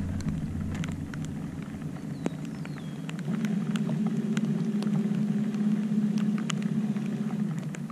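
Electric trolling motor running with a steady hum that gets louder and higher about three seconds in, moving the boat off the bank.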